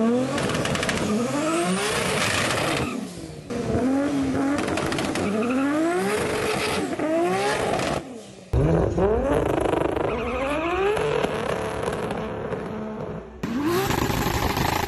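Highly tuned turbocharged 2JZ straight-six in a Toyota Supra revved hard again and again, its pitch climbing and dropping back about once a second, with some tyre squeal from burnouts. The sound breaks off abruptly a few times as it jumps between clips.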